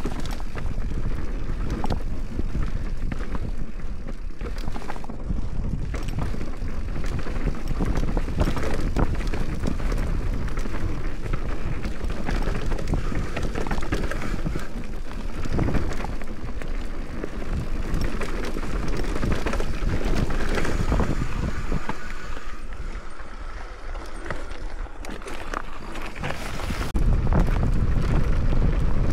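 Mountain bike descending a rough bike-park trail: wind buffeting the camera microphone and tyres rumbling over dirt and rock, with frequent rattles and knocks from the bike. The wind grows louder near the end.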